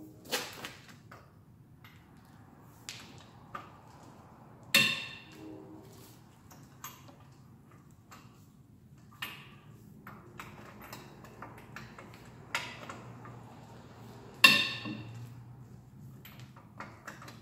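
Hand tools on metal: scattered clinks and taps of a socket wrench and extension against a truck's front hub and steering knuckle, with two loud ringing metal clangs, about five seconds in and again about fourteen seconds in.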